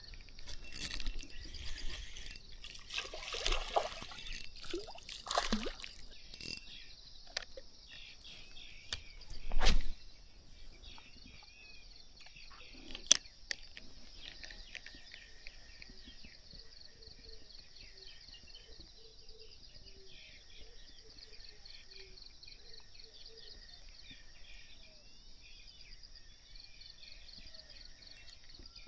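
Steady high-pitched chirping of insects, with a run of splashes and rustles through the first ten seconds, the loudest about ten seconds in, from a small hooked fish thrashing at the water's surface.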